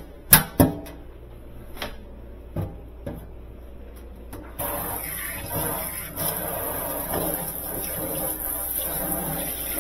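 A few sharp knocks and taps, then from about halfway a steady, scratchy hiss that pulses slightly: a small hand brush scrubbing dust off a refrigerator's condenser coil.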